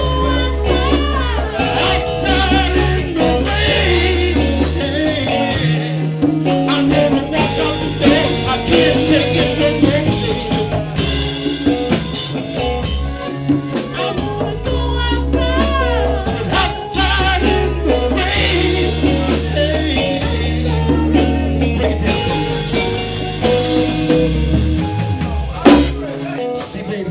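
A live band playing: drum kit, congas and bass guitar, with other pitched instruments over a steady bass line. There is one sharp, loud drum or cymbal hit near the end.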